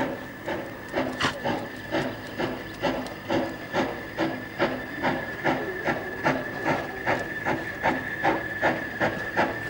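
Narrow-gauge steam locomotive working towards the listener, its exhaust beating evenly at about three beats a second, with a steady high hiss underneath.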